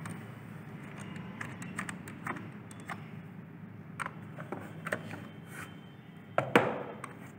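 Light, irregular clicks and taps of a wire end being fitted to a switch's screw terminal and a screwdriver being handled, with two louder knocks near the end.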